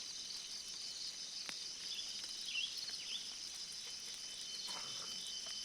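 Insects chorusing steadily in a high, shrill, pulsing band, with a few short chirps about halfway through.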